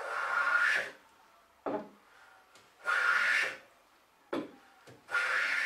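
Hand plane taking three strokes along the oak edge of a panel, each a shaving hiss just under a second long, with short lighter knocks between as the plane is lifted back. The edges are being planed straight and square.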